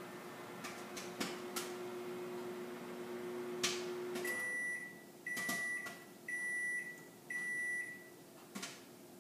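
Over-the-range microwave oven running with a steady hum and a few scattered pops of popcorn, then shutting off about four seconds in. It then beeps four times, about once a second, its end-of-cycle signal that the popcorn is done.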